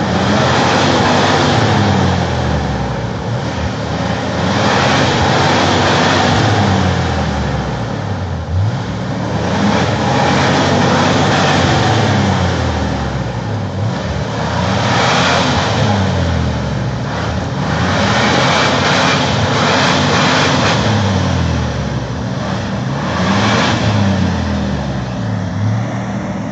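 Jeep Wrangler TJ engine revving up and falling back again and again, every few seconds, as it works its way across rough off-road ground.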